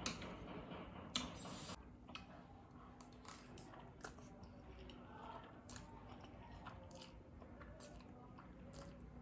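Person chewing a mouthful of spicy instant noodles with egg and cheese, with soft wet mouth clicks and smacks; a louder smack or click about a second in.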